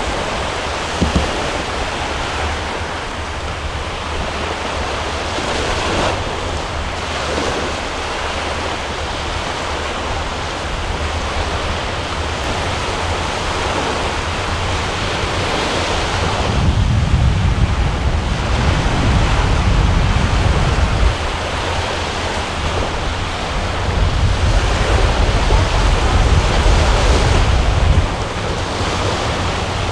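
Wind blowing over the microphone on top of a steady wash of sea waves and surf. Past the middle the wind gusts harder in two long spells of heavy low rumble on the microphone.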